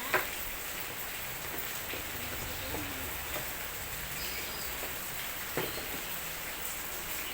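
Steady rain-like hiss, with a few light clicks and taps, one sharp click right at the start and another about two-thirds of the way through.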